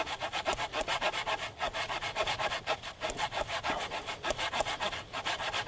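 Small folding saw cutting through a thick green sapling pole, in quick, even back-and-forth strokes.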